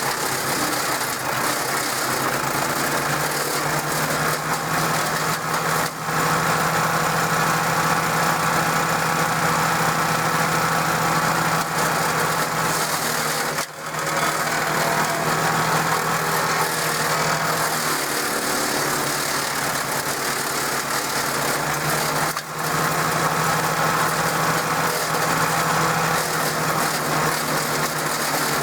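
DR self-feeding wood chipper's Briggs & Stratton engine running steadily at speed, driving the chipper flywheel. The loudness drops briefly three times, about 6, 14 and 22 seconds in.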